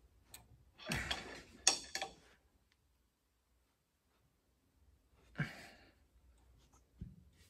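Two heavy exhales, like sighs, about a second in and about five and a half seconds in, with a sharp click during the first and a short dull knock near the end.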